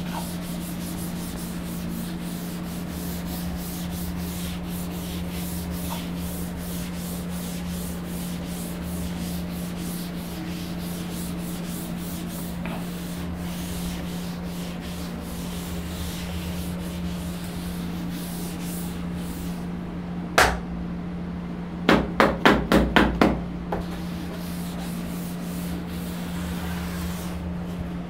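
A teaching board being wiped clean with a duster in repeated rubbing strokes. One sharp knock comes about twenty seconds in, and a quick run of about six knocks follows a couple of seconds later.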